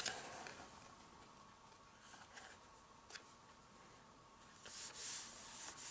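Quiet handling of card stock: a few faint light taps, then a soft papery rubbing near the end.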